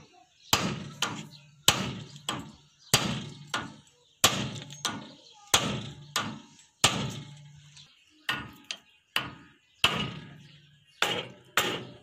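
Steel hammer striking the steel steering linkage at a tractor's front wheel: about twenty sharp metal-on-metal blows at uneven spacing, a little under two a second, many with a short low ring after the strike.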